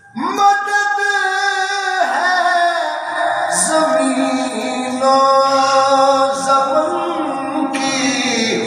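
A man's voice chanting a melodic recitation into a microphone, holding long notes that step from one pitch to the next, in the sung style of a zakir at a Shia mourning majlis.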